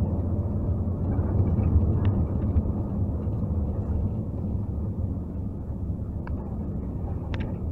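A moving bus heard from inside its cabin: a steady low rumble of engine and road noise, with a few faint clicks or rattles.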